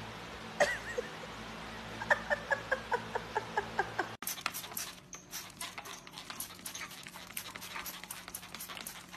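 A dog panting hard in quick short breaths with little whines, about three a second. After a sudden cut, a rapid run of sharp clicks.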